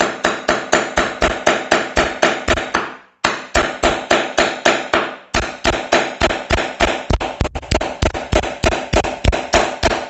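Rapid, steady hammer blows, about four to five a second, from the small hammer face of a multitool hatchet driving a steel nail into very hard wood, each strike with a short metallic ring. The blows break off briefly twice, about three and five seconds in.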